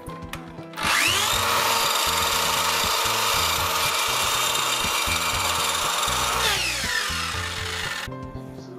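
Miter saw starting about a second in, its motor whining up to full speed and cutting through a slotted wooden kumiko lattice piece, then winding down with a falling whine and stopping near the end.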